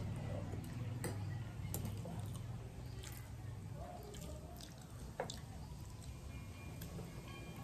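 Faint wet eating sounds of rice and curry being mixed by hand on metal plates, squishy and liquid, with a few light clicks.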